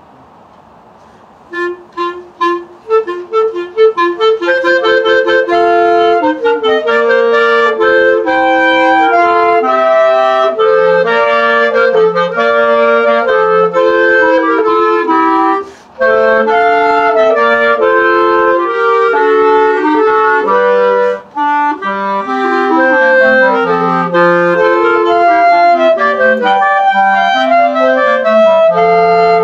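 A trio of clarinets playing a lively piece in three overlapping parts. It opens about a second and a half in with short, detached notes, then runs on in quick interweaving lines, with a brief break about halfway through.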